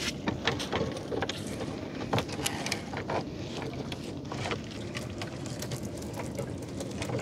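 Irregular sharp clicks and knocks of gear being handled on a small boat, over a steady low boat-engine hum.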